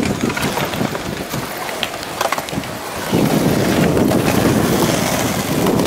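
Skateboard wheels rolling on a concrete path, a rough rumble with scattered clicks. The rumble eases off about a second in and comes back louder about three seconds in.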